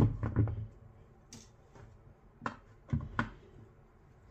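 Sharp knocks and clicks of hard plastic and a screwdriver being handled on a wooden workbench while a Bluetooth speaker is taken apart. A loud knock comes at the start with two quicker clicks after it, a lighter tap a second or so in, and another three clicks between about two and a half and three and a quarter seconds in.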